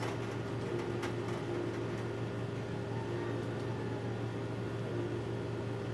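Window air conditioner running with a steady hum and whir, with a single faint click about a second in.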